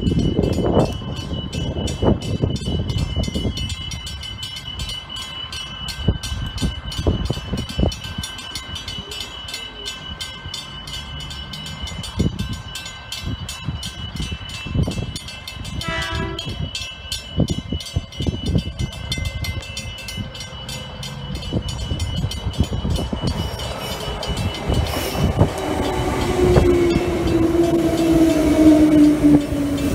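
Transperth electric suburban train: a passing train's rumble fades over the first few seconds, and a brief horn sounds about halfway. Near the end another train pulls into the platform, its traction motors whining downward in pitch as it brakes to a stop.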